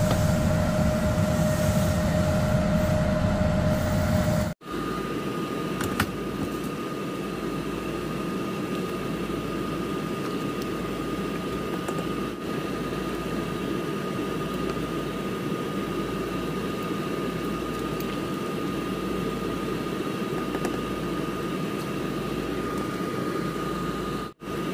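Steady whir of a kitchen fan with a constant hum tone, over a pot of rice porridge simmering on the stove. After a cut about four and a half seconds in the hum's pitch is higher, and there is one light knock at about six seconds.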